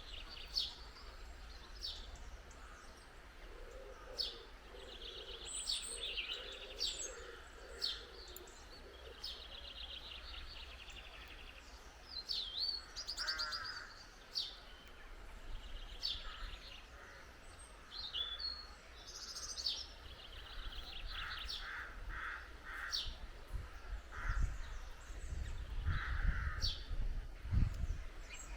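Small garden songbirds chirping and twittering close by in a busy run of short calls and trills, over a steady low rumble, with a few low thumps near the end.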